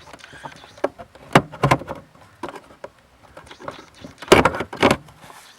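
Irregular knocks and clunks of hand work on the fuel pump control module and its plastic fastener under the trunk floor. The loudest cluster of knocks comes about four and a half seconds in.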